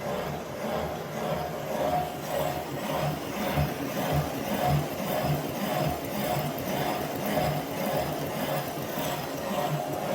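Portable line boring machine running, its boring bar turning a cutter through a worn excavator pin bore, with a steady rhythmic pulse about twice a second.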